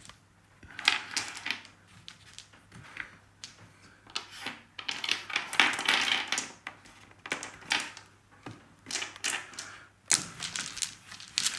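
Dice rattling and clattering onto a tabletop as handfuls are rolled for a wargame, in about three bursts of sharp clicks.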